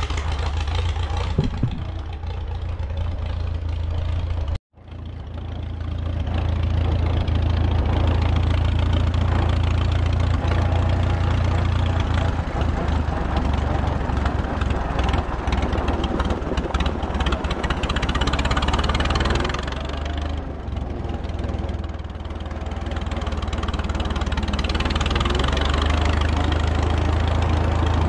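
Farmall tractor engine running steadily as the tractor is driven, with a brief break about four and a half seconds in.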